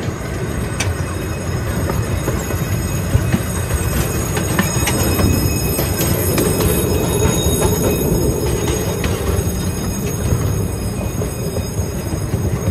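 Small open-sided train car rolling along its track: a steady rumble of wheels with scattered clicks from the rails.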